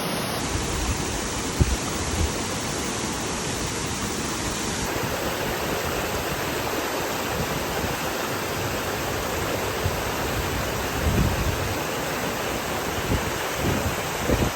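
Steady rushing of a waterfall, OK Slip Falls, with a few brief low thumps, about 1.5 s in and twice near the end.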